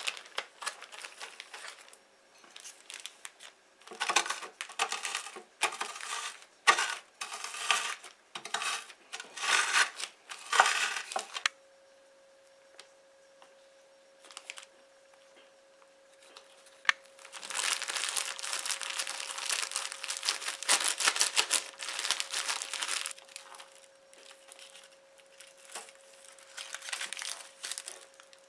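Zip-top plastic bag crinkling as Oreo biscuits inside it are crushed into crumbs by hand, in irregular bursts of rustling and crunching over the first eleven seconds or so. After a quiet spell, a longer stretch of steady bag crinkling comes as the crumbs are worked with melted butter, trailing off into softer rustles.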